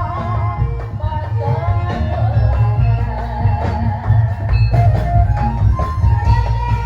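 Loud music from a Javanese barongan troupe's accompaniment: a heavy, pulsing drum beat under a wavering melody line.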